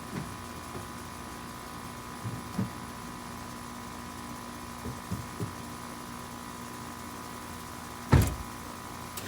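Dull knocks and clunks of engine parts being handled while the intake manifold is worked loose, scattered over the first half, with one much louder thump about eight seconds in. A steady hum runs underneath.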